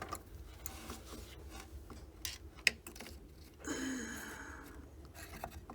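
Small hand tools working inside an amplifier chassis: scattered light metallic clicks, one sharper click about halfway through, and a short scrape, as clipped-off wire scraps are picked out.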